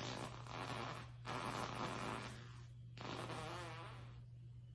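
Three long breathy farts one after another, the last with a wavering pitch.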